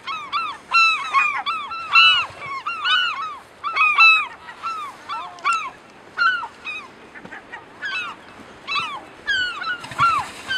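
A colony of gulls calling: many short, arched, squawking calls overlapping one another. The calls are thickest in the first half, thin out for a couple of seconds after about six seconds in, then pick up again near the end.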